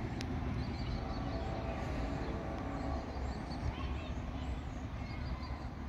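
Outdoor ambience: a steady low rumble with faint, distant voices and a few short, high chirps of small birds.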